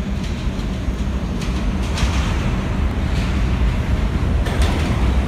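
R68 subway train approaching through the tunnel into the station: a steady low rumble that grows slowly louder, with a few sharp clacks from the wheels on the rails.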